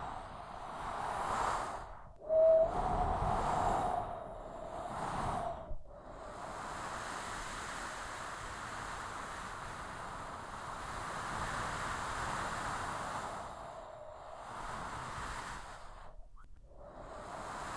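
Strong storm wind blowing in gusts, a rushing hiss that swells and dies away several times. A brief whistling tone comes about two and a half seconds in.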